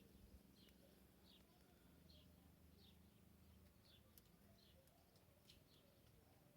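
Near silence, with a faint bird chirping in short high notes, evenly repeated about once every three-quarters of a second.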